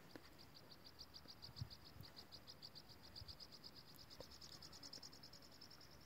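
An insect chirping: a faint, fast, even trill of high chirps, about nine a second.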